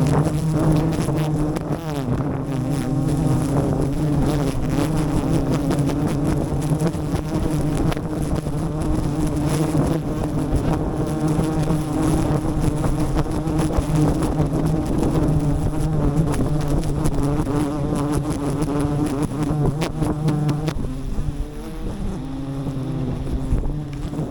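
A swarm of wild honeybees buzzing: a dense, steady drone that thins briefly near the end.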